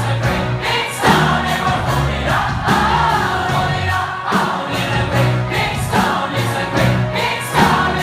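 Live band playing with a large concert crowd singing along together, the many voices blending like a choir.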